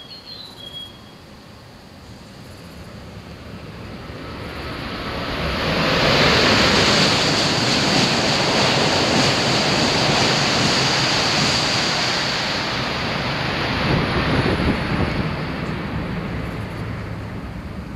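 E5-series Shinkansen passing through the station at over 300 km/h without stopping: a rushing noise of air and wheels that builds over a few seconds, stays loud for about six seconds, swells once more, then fades as the train runs away.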